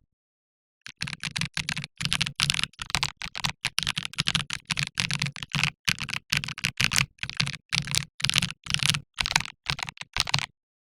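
Typing on a mechanical keyboard: a steady run of sharp keystrokes, about three to four a second, starting about a second in and stopping shortly before the end.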